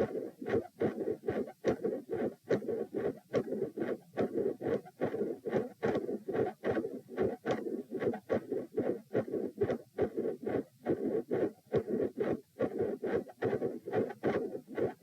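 Human heart beating in a steady rhythm, recorded at the chest: loud first and second heart sounds, both split, with a midsystolic murmur between them.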